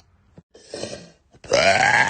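A woman burping: a loud, long belch starts about one and a half seconds in, its pitch rising at first and then holding steady. A short breathy sound comes just before it.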